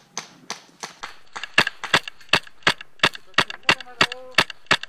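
Airsoft gun firing a quick string of single shots, about three a second, each a sharp crack.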